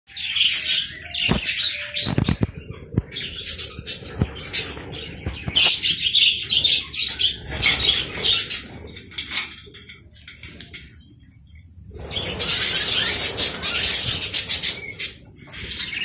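A flock of budgerigars chirping and chattering, with a few sharp knocks in the first three seconds. About twelve seconds in, a loud rush of many wings flapping lasts a couple of seconds.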